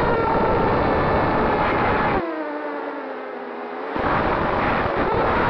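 Multirotor drone's motors and propellers whining steadily, a dense stack of tones over a rumble. About two seconds in the rumble drops away and the whine slides down in pitch for a couple of seconds before the full sound comes back.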